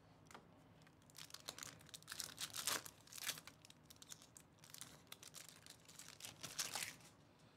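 Foil trading-card pack being torn open and crinkled as the cards are slid out, in irregular crackly bursts from about a second in until near the end.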